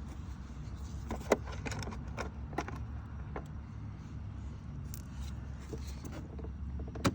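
Plastic dispenser trim panel being handled and flipped over: scattered light clicks and knocks of plastic, the sharpest about a second in and again near the end, over a steady low hum.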